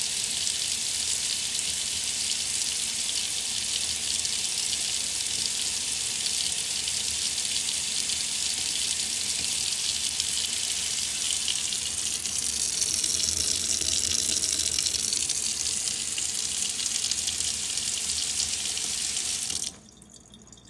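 Water faucet running in a steady stream, its splash shifting and growing a little louder about twelve seconds in. The tap is shut off suddenly near the end.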